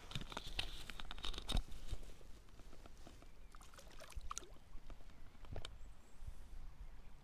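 Splashing and handling noise as a small trout is let go into a shallow, stony stream: a cluster of clicks, knocks and watery hiss in the first two seconds, then scattered clicks of stones and gear.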